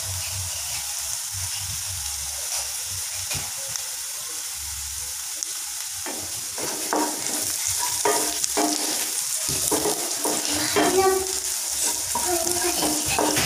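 Sliced onions sizzling in hot mustard oil in a nonstick kadai, fried down to browned. From about halfway through, a wooden spatula stirs and scrapes them around the pan in quick, irregular strokes.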